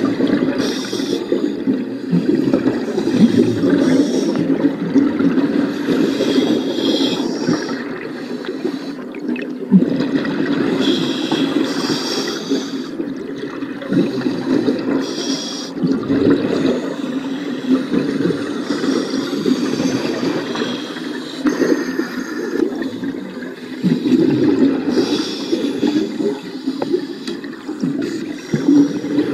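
A scuba diver's regulator breathing and exhaled air bubbling, heard underwater as a muffled low bubbling with brief hissing bursts every couple of seconds.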